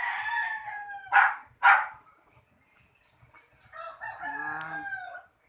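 A rooster crowing twice, each crow a drawn-out call that falls in pitch at the end. Between the crows, a little after a second in, come two short, sharp, loud noises, the loudest sounds here.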